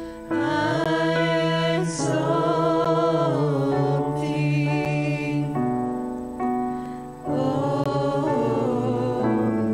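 Church worship team singing a hymn together in several voices, with held, wavering notes in phrases of a couple of seconds, over an electronic keyboard accompaniment.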